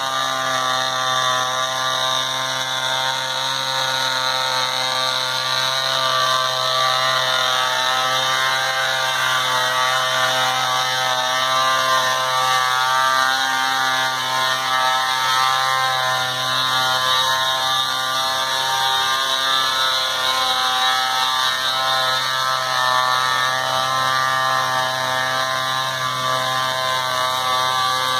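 Small internal-combustion model engine of a garden-scale live diesel locomotive running steadily, a high buzz with many overtones that wavers slightly in pitch as the locomotive travels along the track.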